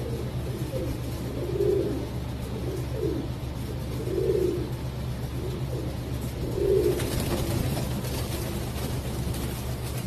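Fancy pigeons cooing over and over, with three louder coos about two and a half seconds apart, over a steady low hum.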